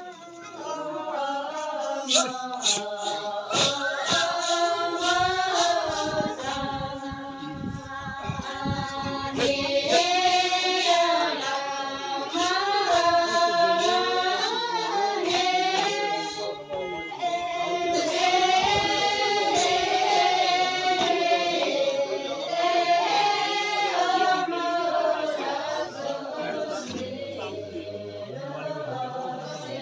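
Singing: a high voice holding long notes that waver and glide between pitches.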